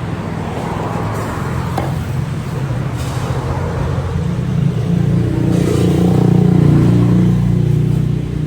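Motorcycle engine running, a steady low hum that swells louder about five seconds in and eases off near the end.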